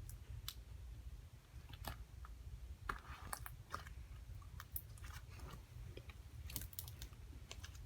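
Sticky homemade slime being squished and stretched by hand, giving off irregular small clicks, pops and crackles.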